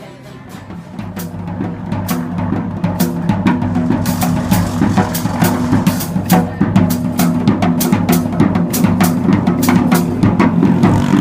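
Drums played fast, a dense run of hits over a low sustained pitched part, fading up over the first few seconds.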